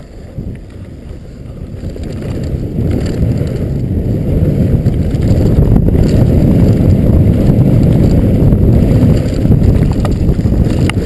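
Wind rumbling over the camera's microphone, mixed with tyre and trail noise from a Specialized Stumpjumper FSR mountain bike rolling fast down a dry dirt trail. It grows louder over the first few seconds, then stays a steady, heavy rumble with a few faint clicks.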